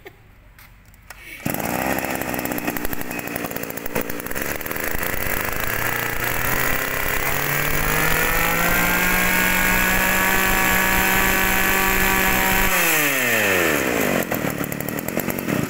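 Echo 22cc two-stroke brush cutter engine starting about a second and a half in, its pitch rising over several seconds to a steady high-speed run. It then drops back toward idle and stops near the end.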